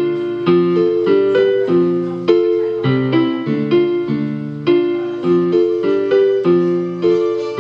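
Electronic keyboard with a piano sound playing a steady run of chords, struck about twice a second and each left to ring.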